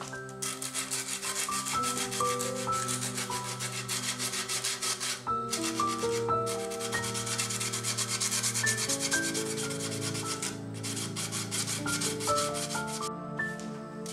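Hand-sanding the edge of a wooden board with sandpaper: fast back-and-forth rubbing strokes that pause briefly a few times and stop near the end, over soft background music.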